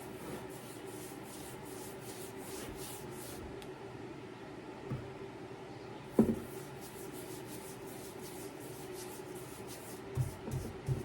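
Quick, regular rubbing strokes of an applicator spreading polyacrylic finish across a sycamore tabletop, in two runs with a pause between. A single thump comes about six seconds in, a few knocks near the end, and a low hum runs under it all.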